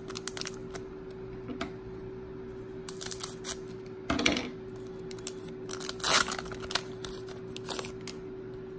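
Crinkling of a foil Pokémon booster pack wrapper as it is handled and opened, with short sharp crackles, the loudest about four and six seconds in, followed by the cards being slid out.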